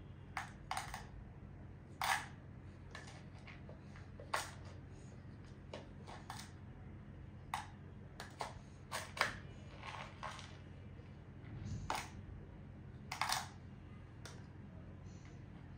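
Small metal spoon clicking and rattling against a clear plastic jar as cardamom pods are scooped and dropped into it, in irregular clinks about a second or so apart.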